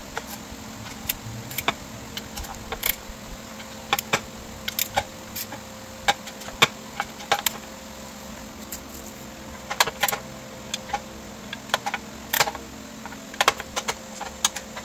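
Socket ratchet wrench clicking in short, irregular runs of sharp metallic clicks as the powerhead mounting bolts are tightened down. A faint steady hum runs underneath.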